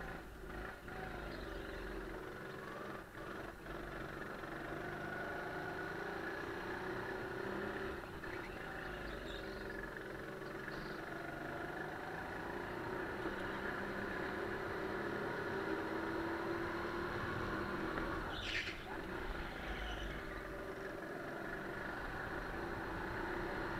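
Honda 200 cc single-cylinder four-stroke engine of a Sodi GT5R rental kart running under load at speed, its pitch rising and falling gently through the corners. A short burst of noise about three-quarters of the way through.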